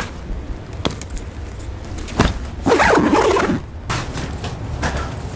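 Luggage zipper being pulled, the loudest stretch lasting nearly a second around the middle, among the knocks and rustling of bags being packed and a suitcase lid being handled.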